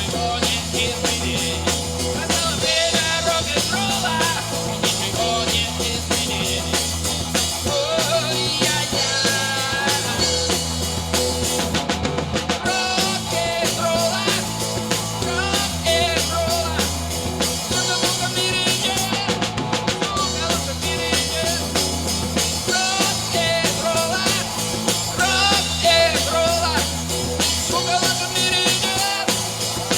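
Live rock band playing a rock-and-roll song, with a drum kit keeping a steady beat under guitars.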